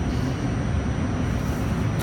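Steady low rumble of a train carriage's interior, even in level throughout, with a faint steady high whine above it.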